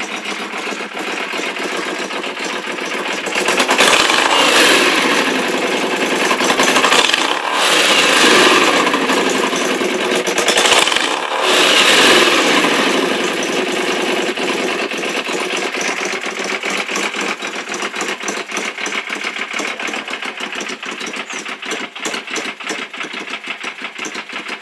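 1994 Yamaha Virago 535's air-cooled V-twin idling through an exhaust collector box drilled out for a louder, deeper note. A few seconds in it is revved several times in a row, each rev rising and falling, and then settles back to a steady, pulsing idle.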